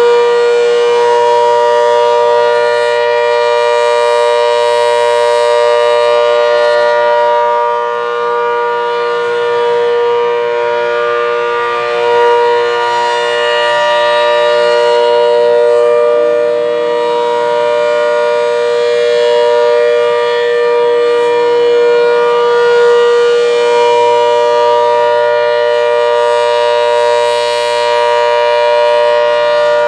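ACA Hurricane 130 MKII rotating outdoor warning siren sounding the Alert signal: a loud, steady chord of fixed pitch that swells and fades slowly as the rotating horn sweeps past.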